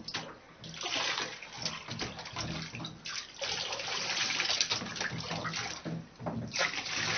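Water splashing and sloshing in a bathtub as a cat is washed by hand, in uneven stretches with short breaks.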